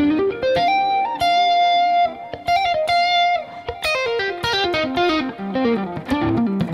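Electric guitar playing fast runs of single notes: a quick rising run, a high note held for about two seconds, then fast falling runs back down.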